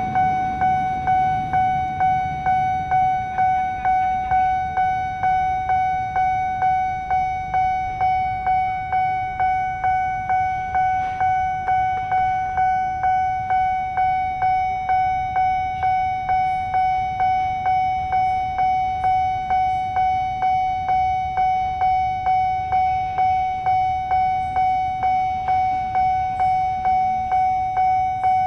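Railway level-crossing warning bell ringing one steady pitched tone, struck about twice a second with each strike fading into the next. It is the signal that the crossing is closed for a train.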